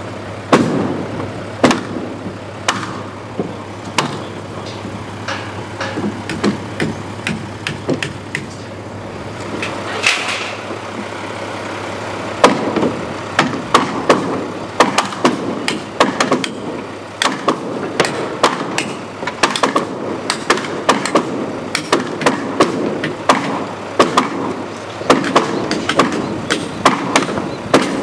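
Sledgehammer blows on a wooden striking block, driving an interlocking log down onto the log wall below: sharp wooden knocks, scattered at first, then steady at about two a second from roughly halfway.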